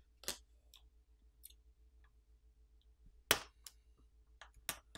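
Small sharp clicks as flex cable connectors are popped off a Samsung Galaxy A11's motherboard with a plastic pry pick: about six clicks, the loudest a little over three seconds in.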